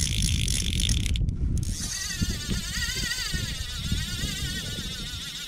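Fly reel's click-and-pawl ratcheting as line is drawn off it, wavering with the speed of the pull, over wind rumbling on the microphone.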